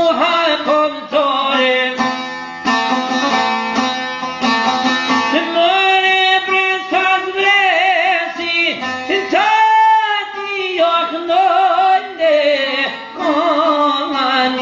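A man sings a folk song, accompanying himself on a long-necked plucked lute. His voice glides between notes and wavers with wide vibrato on long held notes in the middle, over steady strummed and plucked strings.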